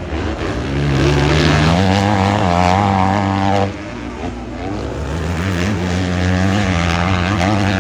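450cc motocross bikes' engines revving hard, the pitch climbing in the first second or so. The loud note drops off suddenly about halfway through, then builds again toward the end.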